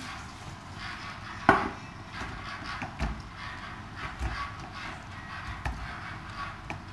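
Quiet kitchen handling: one sharp knock about a second and a half in, then a few soft bumps as figs are set by hand into a plastic bowl of sugar.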